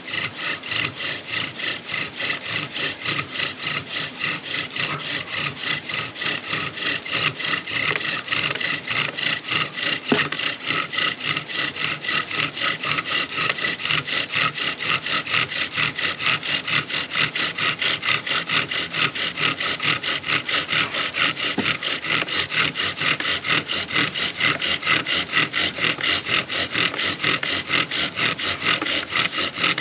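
Bow drill in steady use: a cedar spindle driven back and forth by the bow, grinding into a cedar hearth board in fast, even strokes with a rasping squeak. It is the friction stage of building an ember, with smoke already rising.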